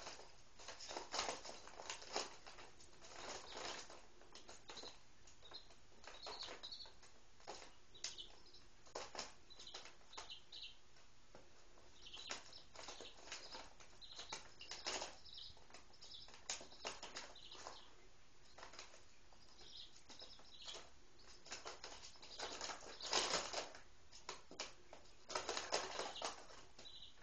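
Three-day-old Speckled Sussex and Rhode Island Red chicks, faint: brief high peeps here and there over the scratch, tap and rustle of their feet and beaks on newspaper. The rustling is loudest in two longer stretches near the end.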